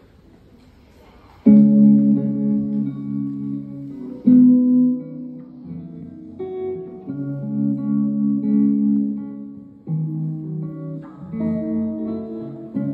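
A hollow-body electric guitar plays slow chords, each struck and left to ring. It comes in about a second and a half in, after faint room murmur.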